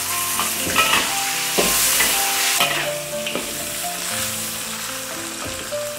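Ginger, garlic, dried red chillies, star anise and cinnamon sizzling in hot oil in a wok. A metal spatula stirs them and scrapes the pan a few times.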